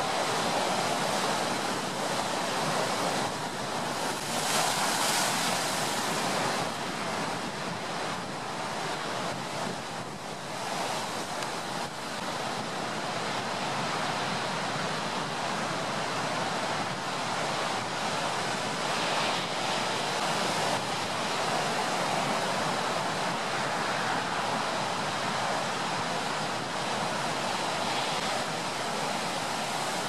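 Ocean surf rushing continuously, swelling louder every several seconds as waves break, blended with a steady bed of brown noise.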